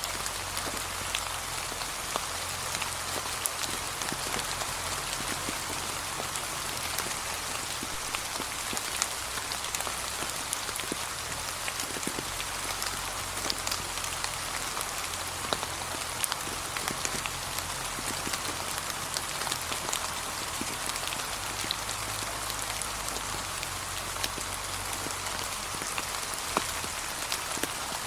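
Steady light rain falling on a leaf-strewn path, an even hiss with many small drop ticks throughout.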